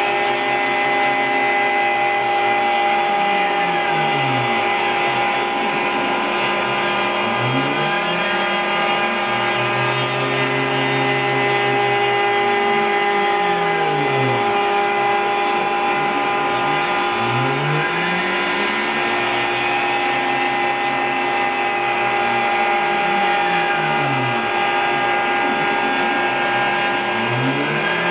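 CNC router spindle running steadily while cutting around a circle in MDF, with the dust-collection vacuum running through the dust shoe. Under it the machine's axis motors whine in sweeping rising and falling tones that repeat every few seconds as the tool travels around the circle.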